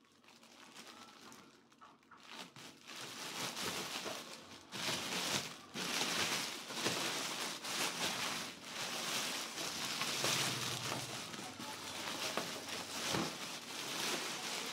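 Thin plastic bag rustling and crinkling as it is pulled and bunched off an appliance by hand, faint at first and louder and near-continuous from about two seconds in.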